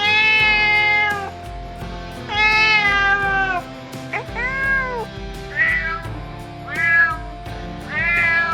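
A domestic cat meowing six times: two long meows, then four shorter ones, over background music.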